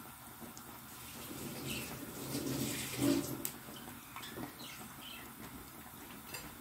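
Battered naan pakora frying in hot oil in a frying pan, with a steady sizzle and a few small crackles, the loudest about three seconds in.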